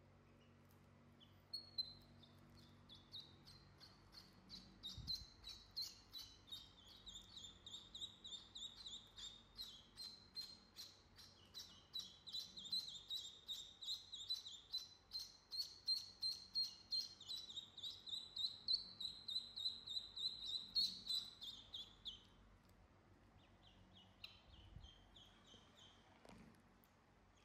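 Two ducklings peeping, a rapid, steady run of short high peeps, about three a second, that stops abruptly near the end, followed by a few fainter peeps.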